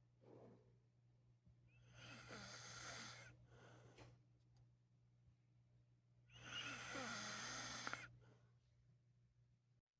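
A man snoring in his sleep: two long snores, each over a second long, about four seconds apart, with fainter breathing between them.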